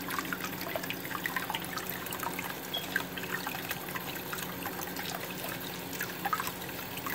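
Warm water running from a bathroom tap, splashing over cupped hands and trickling into the shallow water below, with many small drips and splashes, over a faint steady low hum.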